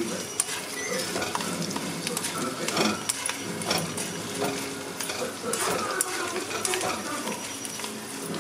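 Food sizzling as it fries in a pan while a ladle stirs and scrapes it, with frequent sharp clicks against the pan.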